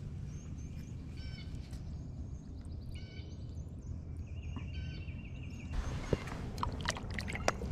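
Small birds chirping in quick repeated phrases over a steady low rumble, with a run of sharp clicks and ticks near the end.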